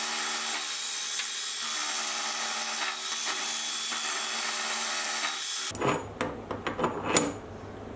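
Sieg X2.7L mini milling machine running an end mill through a metal tool holder: steady cutting noise over the machine's hum, cutting off abruptly about six seconds in. A few light clicks and knocks follow.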